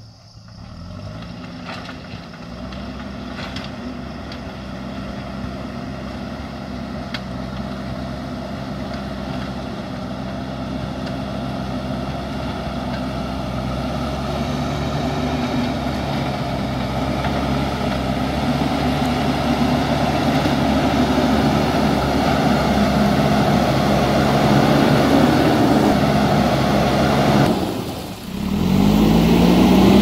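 Diesel engine of a JCB backhoe loader running steadily under load, growing louder as the machine drives closer. Near the end the sound drops for a moment, then the engine revs up.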